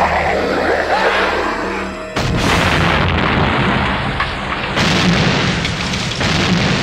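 Action-film soundtrack: booms and explosions over music, with sudden jumps in the sound about two and five seconds in.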